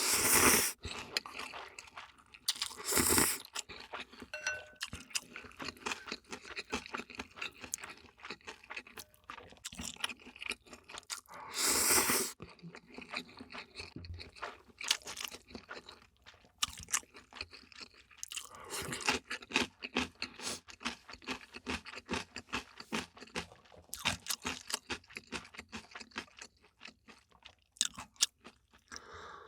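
Close-miked eating: crunchy bites and steady chewing with fast, crackly clicks, broken by four louder drawn-out slurps, near the start, about three seconds in, about twelve seconds in and about nineteen seconds in.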